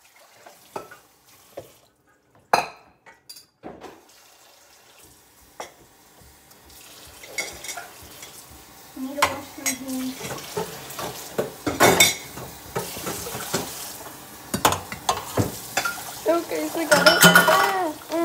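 Dishes and utensils clinking and knocking on a counter, then a kitchen tap running from about six seconds in, with more knocks over the running water.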